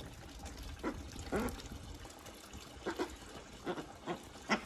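Poultry dabbling and splashing in a freshly filled water dish, giving a handful of short wet splashes and trickles, muddying the water.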